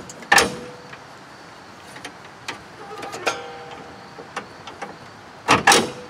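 Clicks and knocks of a hand working a lawn mower's safety cable and handle bail: a sharp knock about half a second in, a brief ringing tone about three seconds in, and two loud knocks in quick succession near the end.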